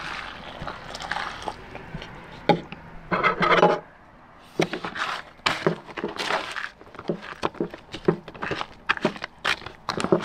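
Water poured into a foil freeze-dried meal pouch, then a metal spoon stirring and scraping inside it. The foil crinkles in quick, irregular rustles through the second half.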